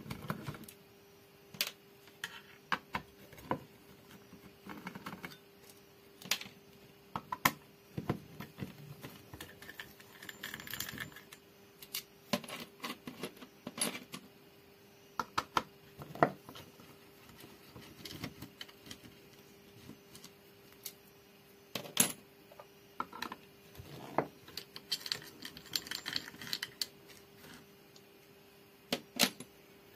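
Irregular sharp metallic clicks, taps and scrapes of a screwdriver and small hand tools working on a subwoofer amplifier's circuit board and heatsink, with a faint steady hum throughout.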